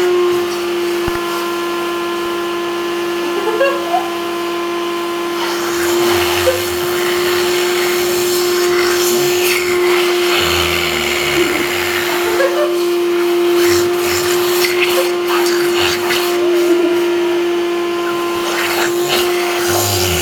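Vacuum cleaner running steadily, a constant motor hum.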